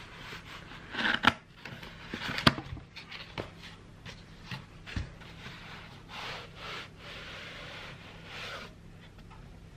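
Cardboard box being opened by hand: its flaps scraping and rustling, with sharp taps of cardboard about a second in and again near two and a half seconds, and a duller knock about five seconds in. Rustling of cloth and paper follows as the wrapped contents are lifted out.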